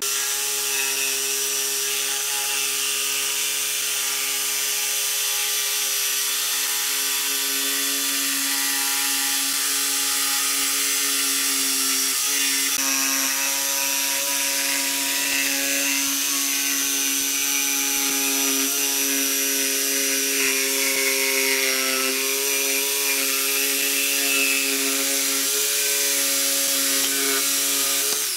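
Electric jigsaw cutting a curve through pine boards: the motor runs with a steady whine over the buzz of the reciprocating blade.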